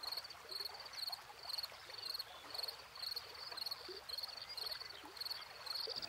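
Insect chirping steadily in a regular rhythm of about two high chirps a second, over faint outdoor hiss.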